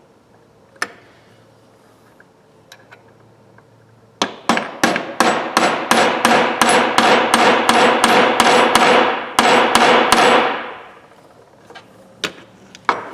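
Hammer tapping a pin punch to drive a part out of a Snap-on F723A 3/8-inch ratchet. A single strike, then a quick run of ringing metal blows at about three to four a second for some six seconds, then two more single taps near the end.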